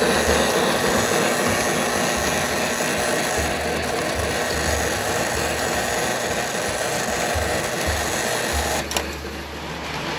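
O gauge toy train running on the layout track, a steady mechanical clatter with a low hum that comes and goes. A click comes about nine seconds in, and the clatter is quieter after it.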